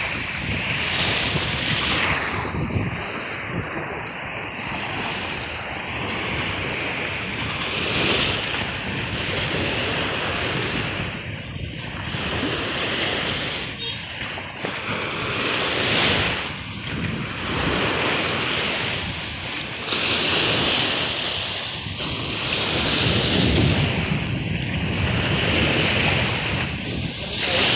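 Wind-driven lake waves breaking and washing against the shore in surges every few seconds, with wind buffeting the microphone.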